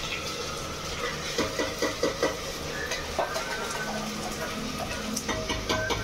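Food sizzling in hot oil in an open pressure cooker on the stove, with a spoon scraping and knocking against the metal pot; a quick run of knocks comes about a second and a half in.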